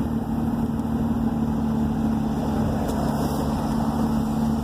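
Audi 80 Cabriolet's engine running at a steady speed through a modified exhaust with glass-pack and cherry-bomb mufflers, a steady drone that holds one pitch.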